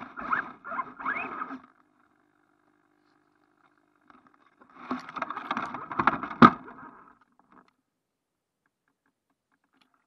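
Muffled rustling and scraping in short bursts as an RC truck pushes through ivy and brush, then handling noise as the truck is lifted by hand, with a sharp knock about six and a half seconds in.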